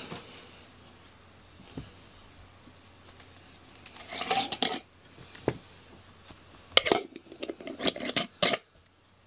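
A small metal bell on a cat's collar jingling in two spells, about four seconds in and again from about seven to eight and a half seconds, as the cat moves.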